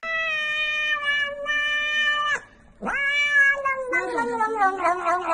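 Domestic cat giving two long, drawn-out meows. The first is held level for about two seconds. The second starts about half a second later, leaps up, then slides slowly down in pitch and turns wavering near the end.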